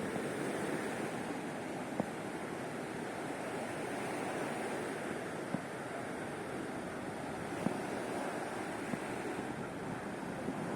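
Sea of Azov surf washing onto the shore: a steady rush of waves, with a few short sharp clicks.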